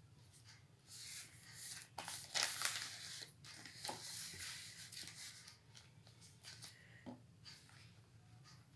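A sheet of drawing paper rustling and crackling as it is handled and shifted, starting about a second in and lasting about four seconds, with a few sharp crinkles. After that come faint pencil strokes on paper.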